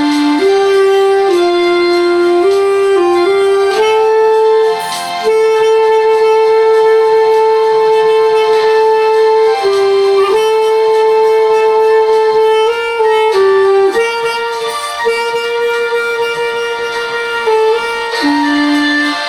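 B-flat clarinet playing a slow melody of long held notes, with a brief pause about five seconds in.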